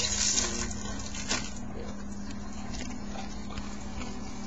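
A foil baseball-card pack wrapper being torn open and crinkled: a short rustling burst in the first second and a half, then faint handling noises.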